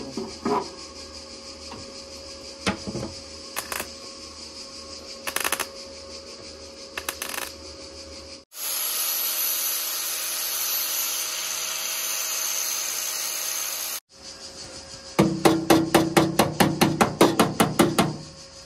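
Bodywork on a Volkswagen T3 van's sheet-metal panels: scattered knocks and taps, then a power tool runs steadily for about five seconds and stops abruptly. Near the end comes a fast run of metal strikes, about seven a second.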